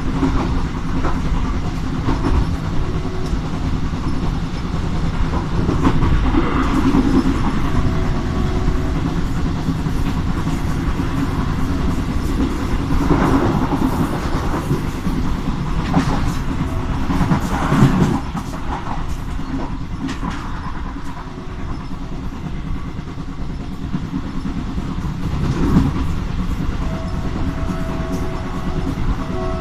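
Diesel locomotive-hauled train running along the line: a steady rolling rumble with wheels clattering over the rail joints, and a few louder swells along the way.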